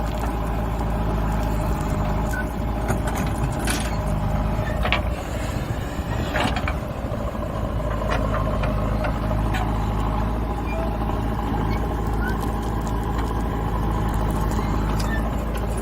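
JCB backhoe loader's diesel engine running steadily under work, its note wavering briefly about halfway through, with a few sharp knocks.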